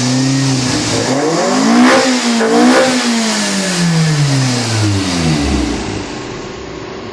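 Toyota 4A-GE engine revving: a short blip, then a longer rev that climbs and falls slowly back toward idle near the end. It is running again after damaged wiring at the fuel pump relay connector was rejoined.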